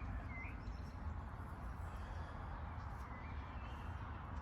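Small birds chirping: a couple of quick chirps at the start and fainter calls about three seconds in, over a steady low rumble and hiss of outdoor noise.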